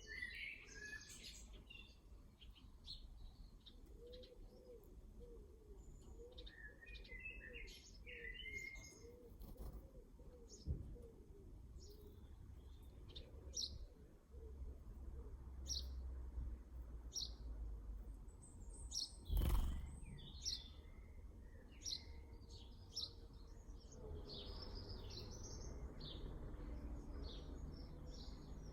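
Garden birds calling: many short, high chirps scattered throughout, with a run of low, quick repeated notes in the first third. One loud knock about two-thirds of the way through. A low background rumble runs underneath.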